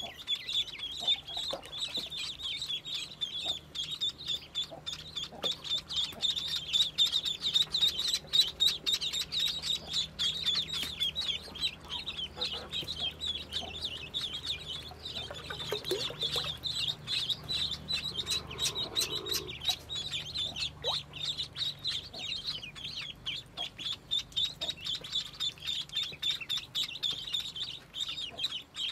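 A brood of ducklings peeping nonstop, many high-pitched calls overlapping into a continuous chorus.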